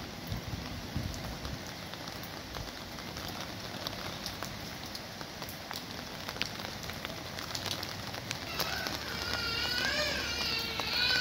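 Steady rain falling on surfaces: an even hiss dotted with individual drop ticks. From about eight seconds in, a bird sings a wavering, warbling phrase over the rain.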